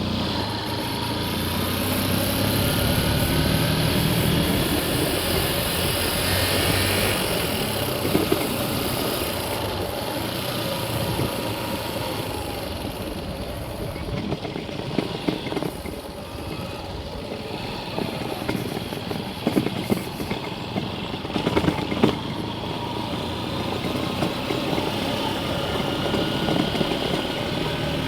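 Motor vehicle on the move: steady engine and road noise, with a few sharp knocks near the two-thirds mark.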